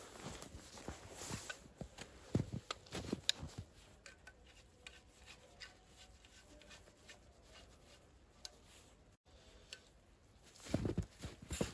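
Soft crunching and scraping in packed snow as a small hand tool digs at it, with a few light knocks and clicks from handling gear; a louder stretch of crunching comes about a second before the end.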